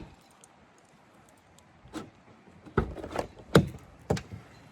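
A few short, sharp knocks and thumps, scattered over the second half, the loudest about three and a half seconds in.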